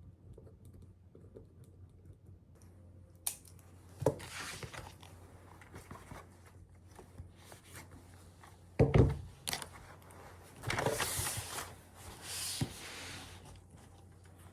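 Objects being handled at close range: scattered clicks and rustling, with a sharp knock about four seconds in, a heavier knock about nine seconds in, and longer rustling near the end.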